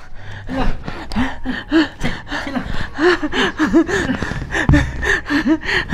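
Short playful voice sounds, not words, rising and falling in pitch and repeated two or three times a second, as an adult plays with a baby: cooing, gasps and giggles.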